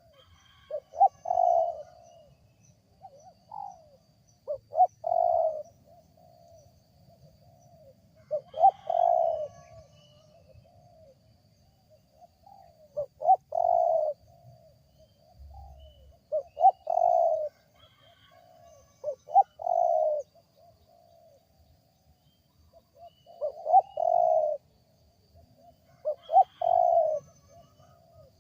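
Spotted dove (tekukur) cooing, repeating a short coo phrase about every three to four seconds, a call the recordist finds unusual for the species. Other small birds chirp faintly and high in the background.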